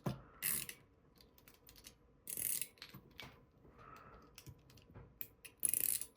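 Small machined metal fidget toy being worked by hand, its moving parts clicking and clacking into spring detents: three louder clacks at about half a second, two and a half seconds and near the end, with light ticks between.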